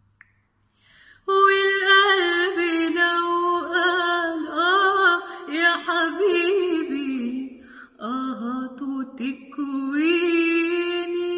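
A woman singing unaccompanied, one long ornamented melodic line that starts about a second in, with a short break about eight seconds in.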